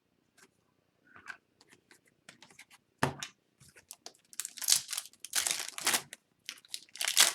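Scattered light clicks and handling of cards, then a foil trading-card pack wrapper being torn open and crinkled in a run of rustling bursts over the last few seconds.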